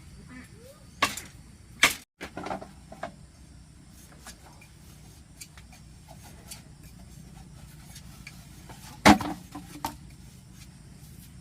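Scattered sharp knocks and clatters of objects being handled. The loudest come about a second in, just before two seconds and about nine seconds in, over a steady low hum.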